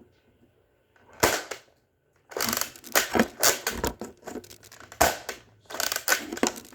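A toy foam-dart blaster fires once with a sharp pop about a second in. A few seconds of clattering, clicking plastic handling noise follow.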